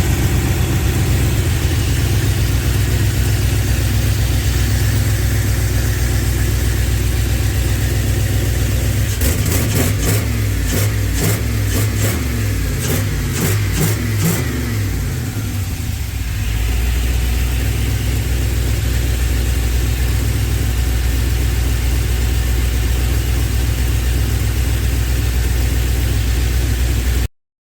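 Swapped-in LS V8 engine in a 1961 Chevrolet C10 idling, then revved several times about a third of the way in before settling back to a steady idle.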